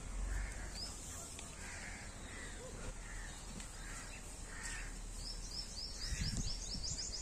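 Birds calling in the background: a repeated series of calls about twice a second, joined for the last two seconds by a quick run of short, high, rising chirps.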